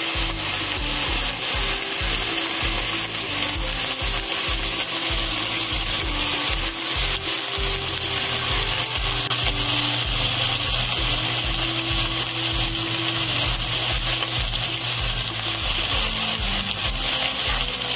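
Steady sizzling of egg roll filling browning in a frying pan: a constant hiss with fine crackle.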